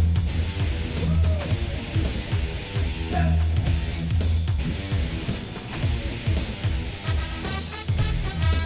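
Background pop-rock music with a steady drum beat, playing in a gap between sung lines.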